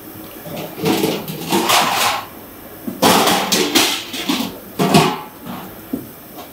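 Tap water running into a stainless steel sink, splashing louder in surges as lettuce leaves are held and turned under the stream: about a second in, again around three to four seconds, and near five seconds.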